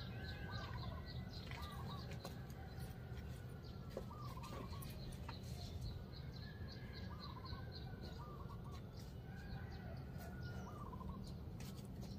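Birds calling outdoors: short curling calls come in clusters throughout, over a rapid run of small high chirps and a steady low rumble.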